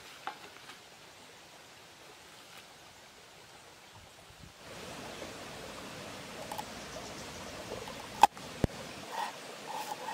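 Knife slicing a red chili on a wooden cutting board, with a few sharp clicks of the blade against the wood and one much louder knock late on, over the steady rush of a shallow stream that becomes louder about halfway through. Near the start there is a light knock as the wooden board is set down.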